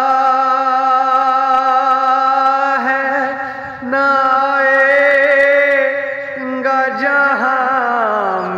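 A man singing a naat, a devotional Urdu hymn, solo and unaccompanied, drawing out long held notes with a wavering vibrato. He breaks for breath about four seconds in, and again briefly after six seconds, and his pitch slides down near the end.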